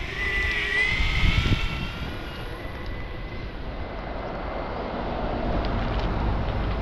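Electric skateboard motor whining as the board rolls along, its pitch shifting with speed in the first couple of seconds, then holding steady, over low wind rumble on the microphone.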